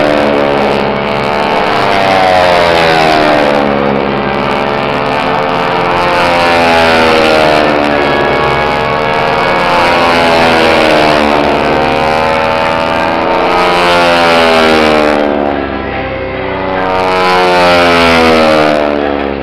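Pratt & Whitney R-1340 radial engines of several North American T-6 Texan trainers flying aerobatics overhead, their engine-and-propeller drone rising and falling in pitch again and again as the planes swoop past. The sound eases off briefly about three-quarters of the way through, then swells again.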